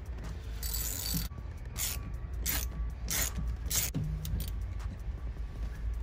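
Hand ratchet driving an M12 triple-square bit, clicking in a run of about five short bursts as it is swung back and forth to back out the steering wheel's centre bolt.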